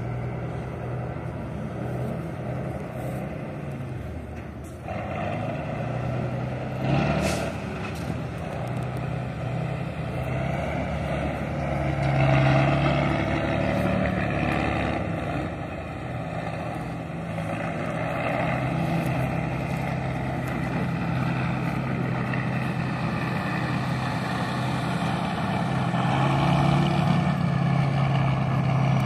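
Tatra trial truck's diesel engine working under load as the truck crawls over rough ground, its note rising and falling with the throttle. There is a short hiss about seven seconds in.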